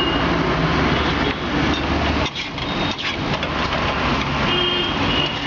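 A vehicle engine running in street traffic, over a steady hiss that fits eggs frying on a flat iron griddle (tawa).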